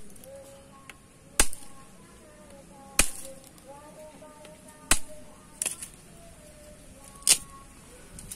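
Wood burning in a small wood gas stove, giving loud, sharp pops and cracks, about five of them, one every second or two.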